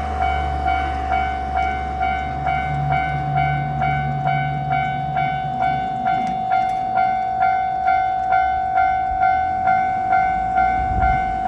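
Japanese level-crossing warning bell ringing its electronic 'kan-kan' tone, struck about twice a second without a break. A passing train's low rumble fades out within the first few seconds.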